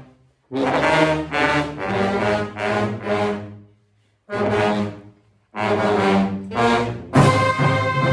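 A brass instrument played in phrases of separate, pitched notes with short gaps for breath between them. About seven seconds in, a fuller, steadier sound comes in.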